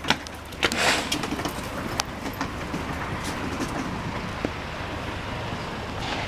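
City street traffic: a steady rumble of passing vehicles, with a louder rushing swell about a second in as one goes by close, and a few sharp clicks.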